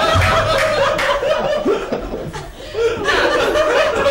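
Several people laughing, in a burst that dips about halfway through and then swells again.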